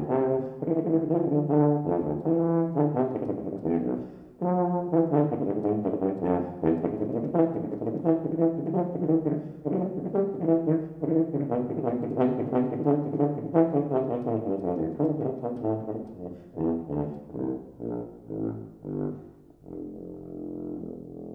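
Unaccompanied tuba playing a quick run of short, separate notes. It grows softer over the last few seconds and finishes on a quiet held note that fades away.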